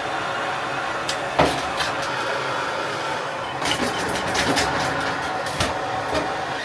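Knocks and clatter from piping and tools being worked on, over a steady mechanical hum. There is a sharp knock early, a run of clattering knocks around the middle, and one more knock near the end.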